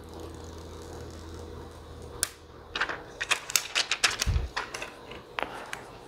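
Handling noise from a smart lock's plastic keypad housing and its paper wrapping: a run of sharp, irregular clicks and crackles from about two seconds in, over a faint steady low hum.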